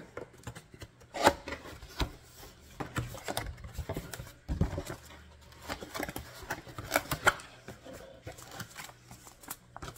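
Cardboard box being opened by hand: flaps and packaging scraping, rubbing and folding, with scattered light knocks.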